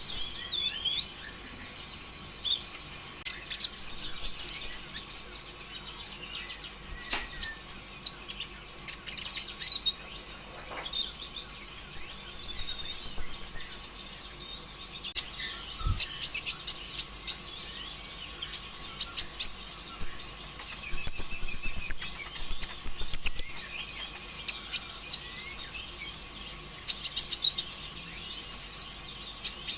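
Kolibri ninja sunbird singing in bursts of rapid, high chirps and short buzzy trills, separated by brief pauses.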